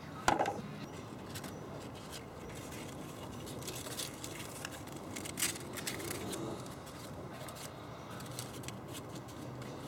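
Light scraping, rustling and scattered clicks as a hand works a strip of P120 sandpaper around the plastic coolant pipe of a Saturn's intake manifold, smoothing the rough spot. A short bump comes just after the start.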